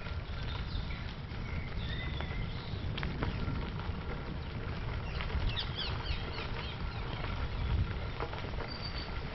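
Bicycle tyres rolling over light gravel, a steady low rumble with scattered small clicks, while birds chirp at intervals, most busily about five to six seconds in.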